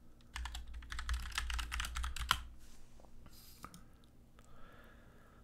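Fast typing on a computer keyboard for about two seconds, then a few single key clicks.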